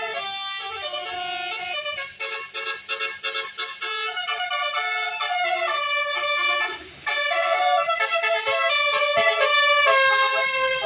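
Bus 'telolet' multi-tone air horn playing a quick tune of stepped notes, with a brief pause about seven seconds in.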